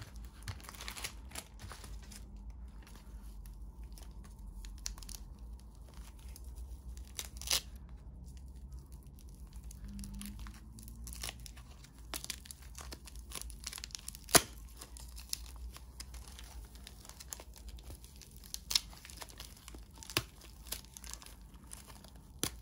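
Mail packaging being opened by hand: paper and plastic tearing and crinkling, with a few sharp clicks and taps scattered through, over a low steady hum.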